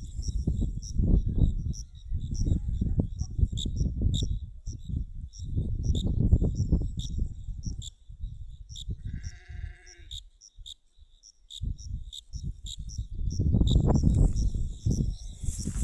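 Gusts of wind rumbling on the microphone over insects chirping steadily at a high pitch, about two chirps a second. A short bleat sounds about nine seconds in.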